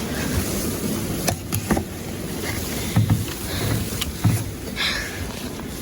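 Strong wind buffeting the microphone as a low, even rumble, with a few short clicks about a second and a half in and again near four seconds.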